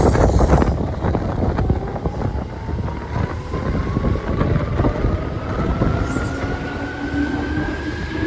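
Seibu 2000 series electric train pulling away from the platform, its motors giving a whine that climbs steadily in pitch as it speeds up, over wheel and car rumble with some knocks in the first second or two.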